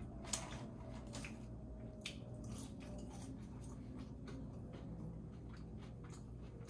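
Close-miked chewing and biting of fast food: wet mouth sounds with short clicks, the sharpest about a third of a second in and another about two seconds in.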